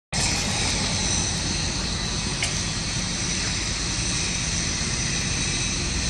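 Diesel engine of a Hitachi Zaxis 225 tracked excavator idling steadily, a low even engine note with a steady high whine over it.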